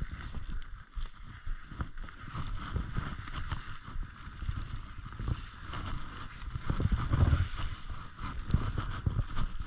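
Wooden-framed snowshoes stepping through deep powder snow: an uneven run of soft crunching, swishing footfalls, over a low rumble on the microphone.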